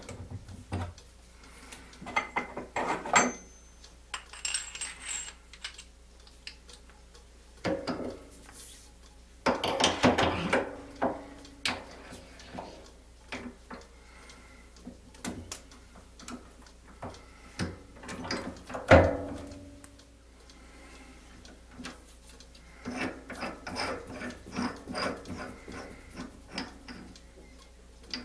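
Steel lathe tooling being handled: a keyed drill chuck and other tools clink and clatter against each other and the machine. The sound comes as scattered clicks, with louder clatters about 10 and 19 seconds in and a run of small quick clicks near the end.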